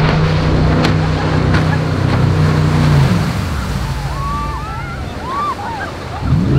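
Jet boat engine (420 hp) running at a steady drone, then its pitch falls away about three seconds in as the boat swings sideways into a spin, leaving the rush of spraying water and riders' shouts. Near the end the engine revs back up and settles into the drone again.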